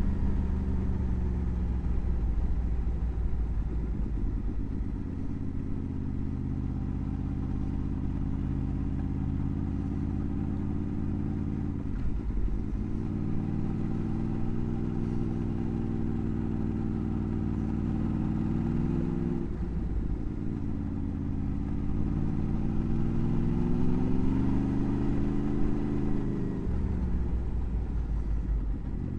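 Motorcycle engine heard from the riding bike under way: its note climbs, then drops sharply at gear changes twice, then rises again and falls away near the end.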